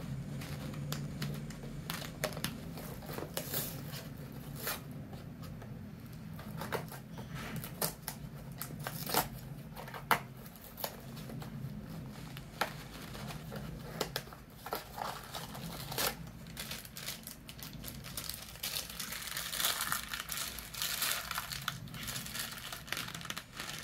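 Blind-box toy packaging handled and opened by hand: a small cardboard box and a black foil bag crinkling and tearing in irregular sharp crackles, thickest about twenty seconds in.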